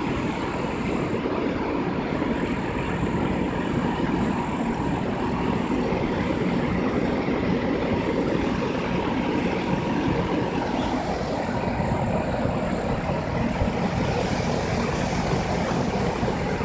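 2001 Goodman air conditioner running steadily: an even low hum with a faint, thin steady whine above it.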